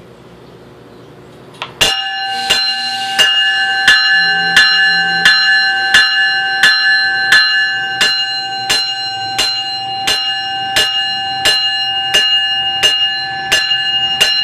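A train's warning bell starts up about two seconds in and rings steadily, about one and a half strokes a second.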